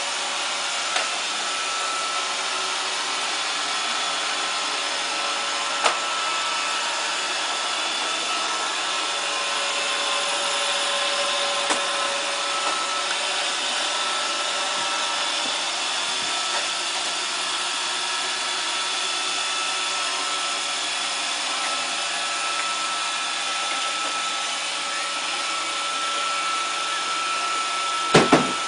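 Roomba robot vacuum running: a steady whir with a faint whine from its vacuum motor and brushes. A few sharp single knocks break in, with a louder cluster of knocks near the end.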